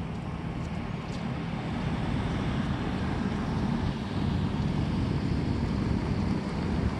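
Steady outdoor ambient noise, a low rumble with no distinct events.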